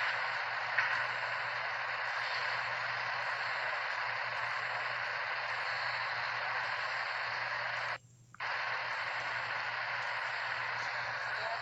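Steady static-like hiss with a low hum underneath, cutting out completely for about half a second about eight seconds in.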